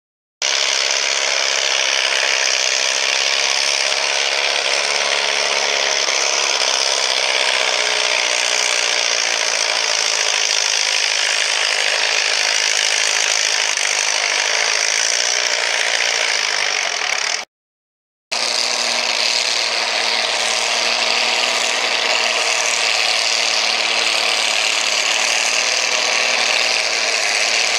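Antique pulling tractor engines running flat out under load as they drag a weight-transfer sled, a loud, steady, clattering roar. The sound cuts off for under a second about seventeen seconds in, then a second tractor's run carries on at the same level.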